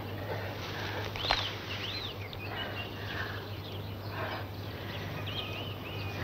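Outdoor birdsong: short whistled chirps that rise and fall, a cluster a little after a second in (the loudest note among them) and another near the end, over a steady low hum.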